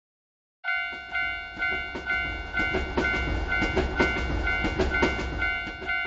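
Railroad crossing warning bell ringing "kan-kan" at about two strokes a second, starting about a second in, while a train passes with a low rumble and clattering wheels.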